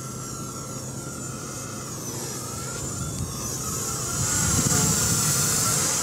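Walkera V120D02S mini electric RC helicopter flying, its motor and rotor whine swinging up and down in pitch as it manoeuvres. Gusty wind buffets the microphone, growing louder in the second half.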